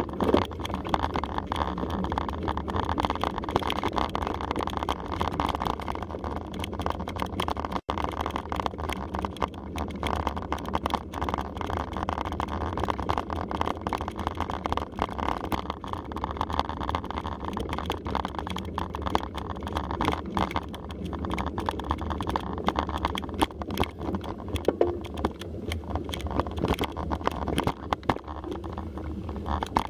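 Mountain bike rolling over a rough dirt trail, heard from a camera riding along: a steady rush of wind and tyre noise with constant clatter and knocks from the bike and camera mount.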